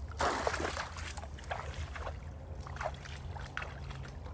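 Kayak being worked under branches blocking a creek: irregular scrapes, knocks and water sloshing against the hull.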